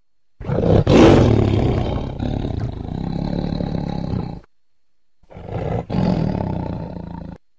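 Big cat roar sound effect, heard twice: a long roar of about four seconds, then a shorter one of about two seconds.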